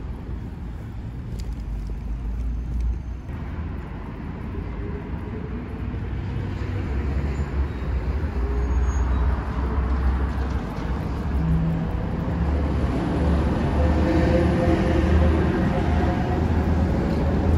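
City street traffic: passing vehicles' engines and tyres on the road, growing steadily louder, with the engine note of a nearby vehicle coming up in the second half.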